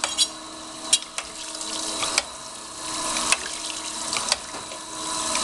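Herless surface grinder running: a steady motor hum under a grinding hiss that swells and fades with each pass, and a sharp clunk about once a second as the hydraulic table reverses.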